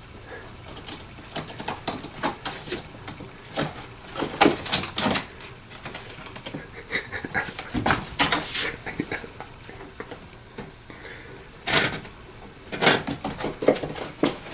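Irregular clicking, clattering and rustling, with a few short whining calls from a pet.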